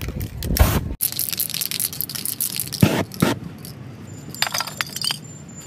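Spray-paint artist's cans and tools clicking, knocking and scraping, with short hissy stretches. Several short ringing clinks come near the end.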